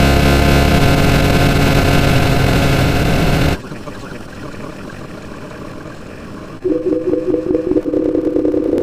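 A string of sound effects cut one into the next: a loud, dense noise with steady tones that stops abruptly about three and a half seconds in, a quieter hiss, then a quick pulsing beep alternating between two notes near the end.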